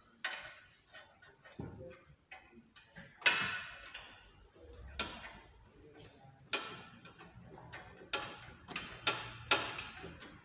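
Irregular metallic clicks and clinks of hand tools working on a car's underside, about one or two a second, the loudest about three seconds in.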